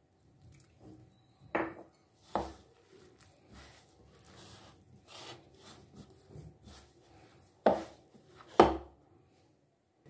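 Hand kneading a soft dough of mashed potato and flour in a bowl: quiet squishing and rubbing, broken by four sharp thumps, two in the first few seconds and two near the end.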